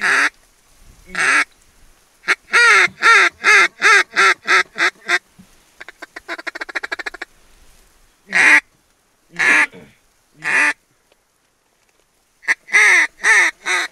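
Mallard duck call blown by a hunter to work incoming ducks. There are two quacks, then a descending string of about eight quacks, a rapid feed chuckle, three single quacks about a second apart, and another quick string of quacks near the end.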